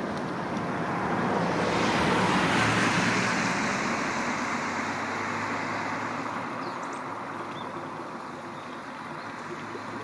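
A passing car's tyre and engine noise, swelling to a peak about two to three seconds in and slowly fading away, over the steady sound of flowing river water.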